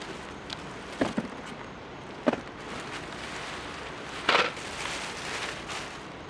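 Unboxing handling sounds: a cardboard box knocked about three times as it is tipped out, then the nylon fabric of a deflated airblown inflatable rustling as it is pulled out and dropped, with a plastic bag crinkling near the end.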